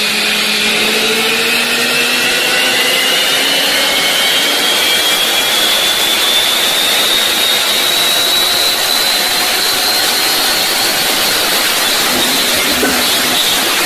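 Ford Shelby GT500's supercharged V8 at full throttle on a chassis dynamometer, its pitch climbing steadily through one long pull, over a loud rushing noise from the tyres spinning on the rollers. Near the end the steady climb gives way to a rougher noise as the car comes off the rollers.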